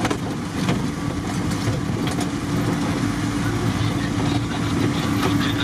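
Off-road 4x4's engine running steadily as it drives slowly over a snowy track, heard from inside the cab: a constant low rumble and hum, with scattered light rattles.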